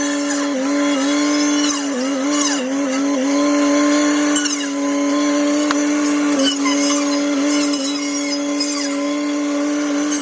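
Tractor-mounted hedgecutter circular saw running steadily on the tractor's hydraulics, its pitch dipping briefly several times as the blade bites into branches. The footage is sped up, so the tone is pitched high.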